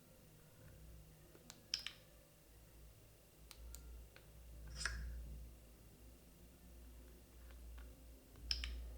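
Faint, sparse clicks and a few short, high ticking sounds from a Samsung Galaxy S24 Ultra's S Pen and its sound effects. The three louder ones come about two seconds in, near the middle and near the end.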